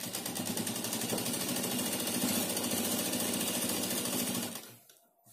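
Domestic sewing machine running at a steady fast pace, stitching lace onto layered fabric. Its rapid, even stitching stops about four and a half seconds in.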